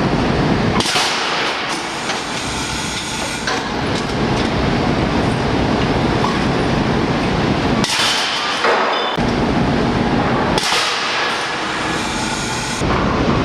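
PowerHammer Model 415 casting degating hammer pounding metal castings in a rapid, clattering run, with about three spells of high hissing noise, each a second or more, breaking in.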